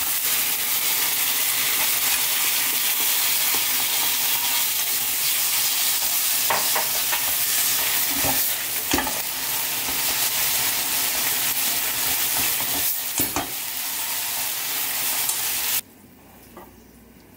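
Glass noodles, vegetables and meat sizzling in a hot wok as they are stir-fried and tossed with wooden chopsticks, with a few short knocks in the middle. The sizzle cuts off suddenly near the end.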